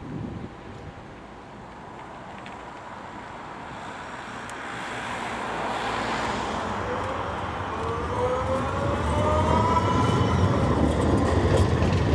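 FGV 3800-series tram (Bombardier Flexity Outlook) approaching on its rails and passing close, growing steadily louder. Over the last few seconds a whine rises in pitch above the rolling rumble.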